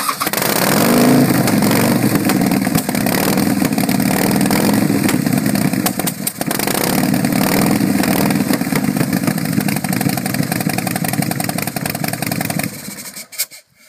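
Custom chopper's 131-cubic-inch V-twin engine firing up and running loud through its chrome exhaust pipes, with a brief dip about six seconds in, then shut off near the end.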